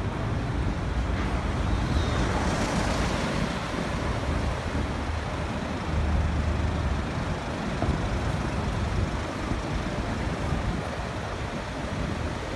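Steady traffic noise from a queue of slow-moving cars, taxis and vans on a busy city road, with a low rumble underneath.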